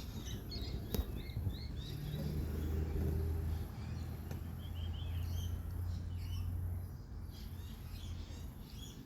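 Bush ambience: birds chirping in short scattered calls over a high insect drone that pulses on and off, with a low hum underneath. A single sharp click sounds about a second in.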